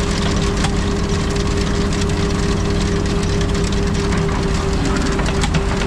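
Heavy diesel machinery idling: a steady engine drone with a held humming tone over it.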